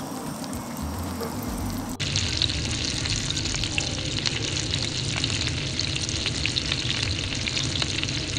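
Garlic basil butter sizzling as it melts in a nonstick frying pan over a propane canister stove, with many small crackling pops. About two seconds in the sizzle jumps louder and brighter.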